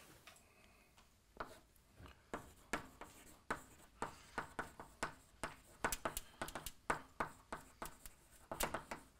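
Chalk writing on a blackboard: an irregular run of short taps and scratchy strokes, several a second, starting about a second and a half in.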